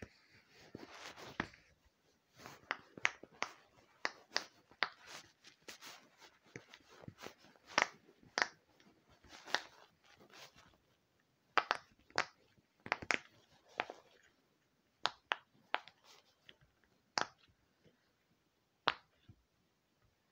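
Silicone pop-it fidget's bubbles being pressed by fingers, giving small sharp pops at an uneven pace of one or two a second, with a brief rustle of handling in the first second and a half.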